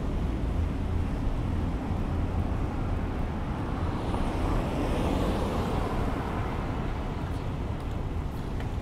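Street traffic: a steady low rumble, with one vehicle passing close by, swelling and fading about halfway through.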